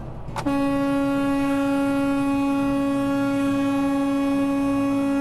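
A semi truck's air horn sounding one long, steady blast of about five seconds, starting about half a second in. It is a warning to a semi that has cut in close ahead and taken away the stopping distance.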